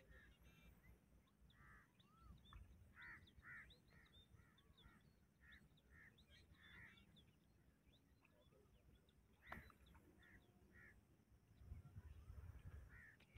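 Faint, distant bird calls: a run of short chirping notes repeated over several seconds, over a low rumble of wind or water.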